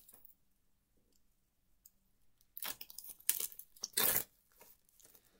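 Plastic wrapping on a pack of game cards being torn and crinkled open: several short bursts of crinkling, about two and a half seconds in and again around four seconds.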